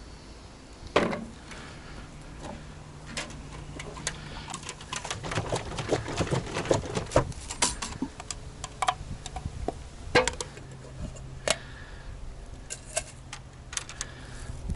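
Scattered short clicks and light knocks, irregular and denser in the middle, over a faint low hum that comes and goes.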